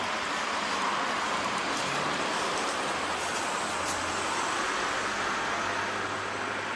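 Steady road traffic noise, with a low vehicle engine hum joining about four seconds in.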